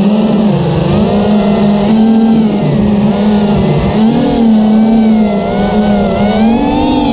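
Kylin210 racing quadcopter's brushless motors and propellers whining, the pitch rising and falling constantly with the throttle.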